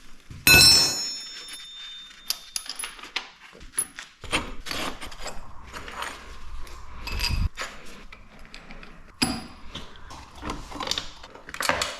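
Metal clanking from work on a motorcycle's rear wheel: a loud ringing clang about half a second in, then scattered clicks, knocks and rattles, with a low rumble for a few seconds in the middle.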